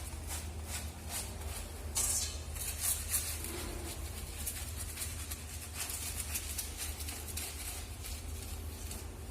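Hands scrubbing a wet Persian cat's fur during a bath: short rubbing strokes at about three a second, over a steady low hum.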